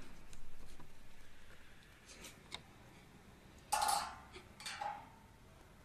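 Light clicks and short scrapes of a plastic PVC window handle and its fittings being handled, with two louder scrapes about four seconds in.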